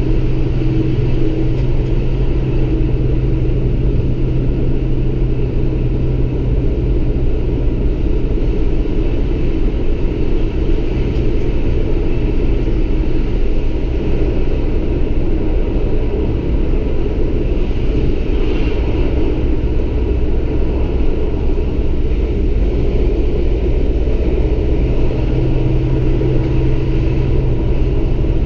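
Alstom Coradia Lint 41 diesel railcar running at a steady speed, heard from the driver's cab: a steady low engine drone with the rumble of the train on the track.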